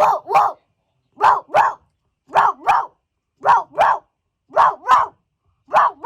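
Dog barking in double barks, "woof-woof", six pairs at an even pace of about one pair a second.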